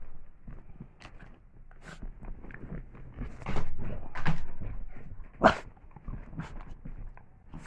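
Small dog playing with a small plastic container on a blanket: scuffling and rustling with scattered light knocks and clicks, and one sharp loud sound about five and a half seconds in.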